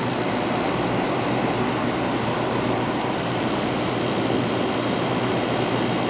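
General Electric rooftop RV air conditioner running steadily with its shroud off: the compressor and the condenser fan run together as a constant hum and whoosh, with the compressor settled into normal running after start-up.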